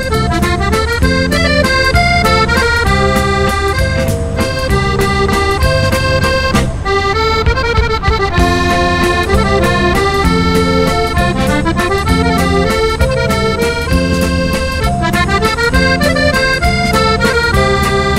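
Accordion music: a melody over a steady, rhythmic bass and chord accompaniment.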